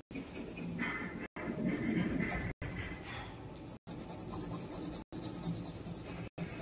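Colouring strokes scratching on a paper card, uneven back-and-forth rubs, broken by brief dropouts about every second and a quarter.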